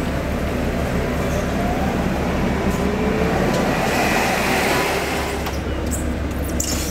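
Forklift engine running steadily, its pitch rising briefly about three seconds in, with scattered light clicks.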